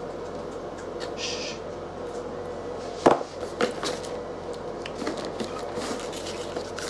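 Unboxing handling noise from a cardboard box and a carrying case: a short rustle about a second in, one sharp knock about three seconds in, then lighter taps and clicks. A steady faint hum runs underneath.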